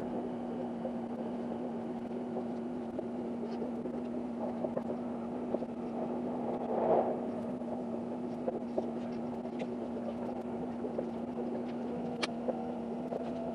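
Limited express train running, heard from inside the passenger car: a steady hum over a rumbling, noisy background with small rattles and clicks, swelling briefly about halfway through.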